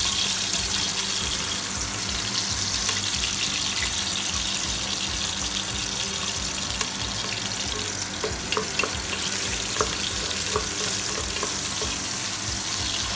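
Sliced onions frying in hot cooking oil in a metal pot, a steady sizzle, with a few small clicks about eight to ten seconds in.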